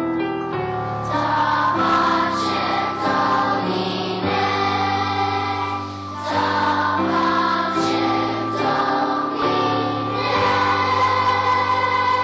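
Elementary school choir singing, with held notes that change about once a second and a brief dip in the singing about six seconds in.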